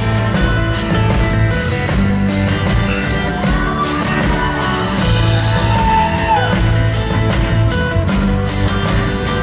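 Live rock band playing an instrumental passage: acoustic guitars strummed over bass and drums. A high note bends and drops about six seconds in.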